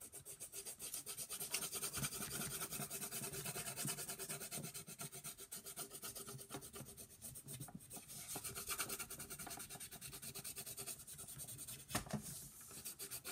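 Rapid back-and-forth strokes of a colouring pencil or crayon on paper, shading in grass: a steady scratchy rubbing, several strokes a second.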